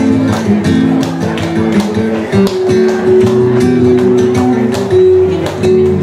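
Flamenco guitar playing tangos, with a steady run of sharp hand claps (palmas) keeping the rhythm.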